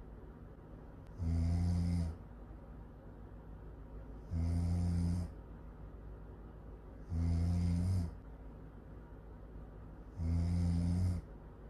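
Loud snoring, four snores about three seconds apart, each a low rasping snore of under a second, with a softer breathy sound between them.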